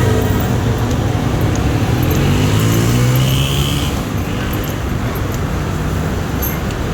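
A motor or engine hum with evenly spaced harmonics, its pitch gliding upward about two seconds in, then thinning to a steady rumbling noise after about four seconds.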